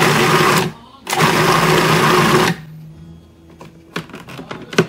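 Countertop food processor pulsed twice, a short burst then a longer run of about a second and a half, its motor whirring as it chops raw fish and oil into a paste. The motor then winds down, and a few light plastic clicks follow near the end as the feed-tube pusher is lifted out.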